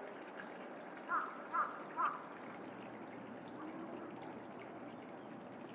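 A crow cawing three times in quick succession, about half a second apart, over a steady rushing background.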